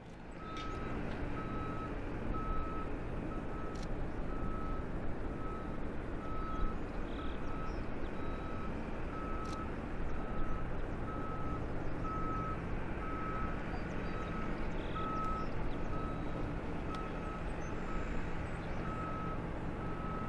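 A vehicle's reversing alarm beeping over and over at one pitch, over a steady low engine hum, with a few sharp clicks.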